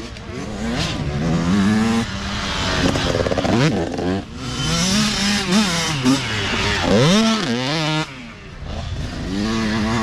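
Youth dirt bike engines revving as the bikes ride past one after another, the pitch climbing and dropping with the throttle and gear changes, with a sharp rev-up about seven seconds in.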